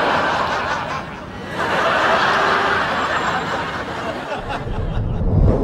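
Sitcom studio audience laughing, the laughter dipping about a second in, swelling again and fading near the end.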